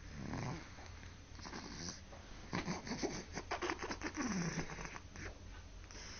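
Snoring in sleep: a deep snore falling in pitch near the start, a stretch of rapid, rough breaths in the middle, and another falling snore near the end.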